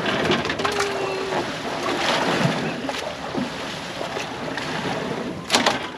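Wind and water noise aboard an open fishing boat, with a brief sharp clatter about five and a half seconds in.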